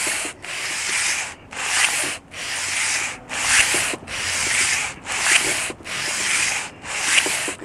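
Sandpaper on a flat board rubbed back and forth across the deck of a cast iron 2.3 L four-cylinder engine block, hand-resurfacing the head gasket face. It makes a hissing rasp in even strokes, a little more than one a second, each with a brief pause where the board changes direction.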